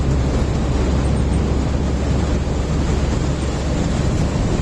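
Steady rumble and rush of a moving road vehicle heard from inside, engine and tyre noise with a heavy low drone.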